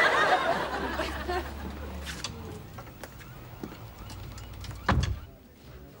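Studio audience laughing, loudest at the start and dying away over the first few seconds. A single thump about five seconds in.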